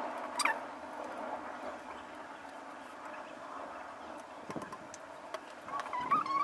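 Faint handling noises of printed photos and double-sided tape: a few light clicks and rustles, with a short rising tone near the end.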